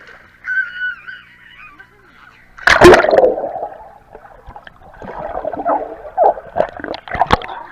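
A big splash about three seconds in, as a person jumps into the water, followed a couple of seconds later by more splashing and sloshing.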